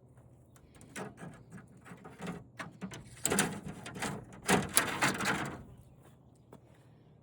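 Plastic and paper film layers from a dismantled flat-screen TV being handled, a run of crinkling and rustling with two louder bursts about three and four and a half seconds in.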